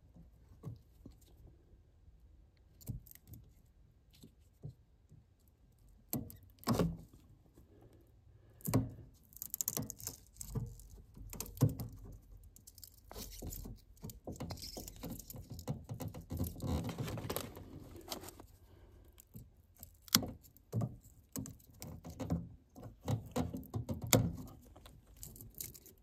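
Hand-tool work on electrical wiring: scattered clicks and knocks, growing busier in the middle with a stretch of rustling and scraping, then a run of sharper knocks near the end.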